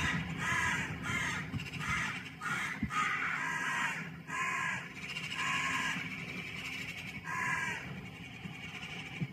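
Crow-family birds cawing: a series of short, harsh calls, several in quick succession in the first few seconds and then more spaced out, over a steady low background rumble.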